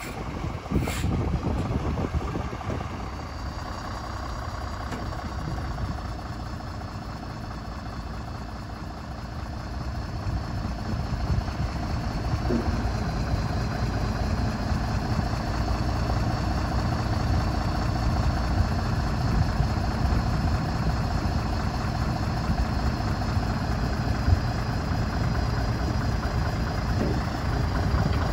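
Scania 82M truck's diesel engine running steadily while its hydraulic loader crane works, the boom being raised and extended. A thin steady high whine sits above the engine from a few seconds in, and the sound grows louder about ten seconds in.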